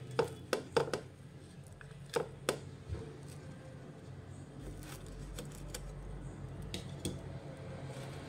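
A wooden spatula knocks sharply against a non-stick frying pan several times in the first couple of seconds. After that there are only a low steady hum and a few faint ticks.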